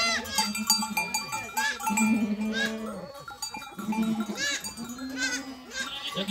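A flock bleating, many calls overlapping, some deep and some high, with livestock bells clinking and ringing among them.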